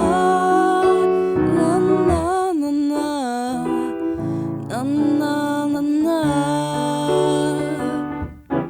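Electric piano playing chords, with a wordless sung melody gliding over it. The music drops away briefly near the end.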